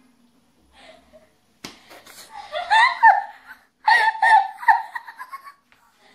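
High-pitched giggling laughter in short repeated bursts, starting about a second and a half in after a quiet opening.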